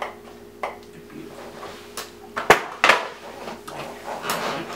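Handling noise: a few sharp clicks and knocks, the loudest about two and a half seconds in, then a brief rustle, over a steady low electrical hum.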